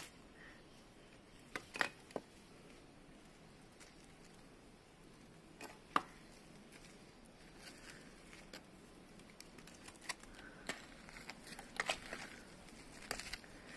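Faint scattered clicks and light scrapes over a quiet background: a few sharp ticks about two seconds in and again around six seconds, then a busier run of small clicks and scratchy scrapes near the end.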